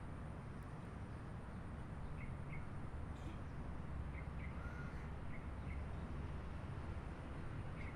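Distant traffic making a steady low rumble, with birds giving short calls, mostly in quick pairs, every second or two.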